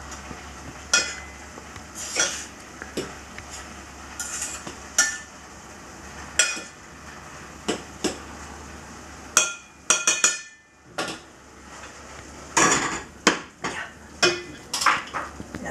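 A spoon stirring a stew in a steel pot, giving irregular knocks, scrapes and clinks against the pot's sides. A quick run of sharper, ringing metal clinks comes about nine and a half seconds in.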